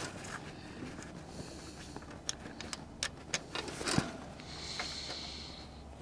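Scattered light clicks and knocks of hand tools on metal while a tractor starter is being unbolted and removed, the sharpest knock about four seconds in, followed by a brief hiss.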